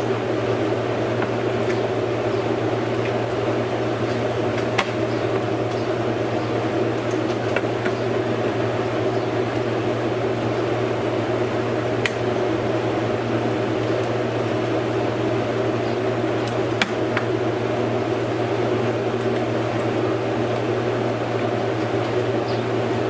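A steady machine hum, like a fan or motor running, with a few faint single clicks of hand tools on metal.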